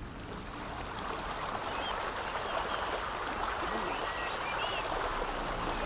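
Flowing water rushing down a channel, a steady noise that slowly grows louder, with a few faint bird chirps. Bowed-string music comes in near the end.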